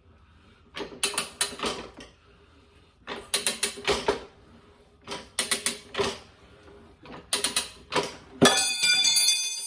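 Manual motorcycle tire changer being worked around the wheel to lever off the second tire bead: four bursts of rapid metal clicking and rattling about two seconds apart, then a ringing metal clang near the end.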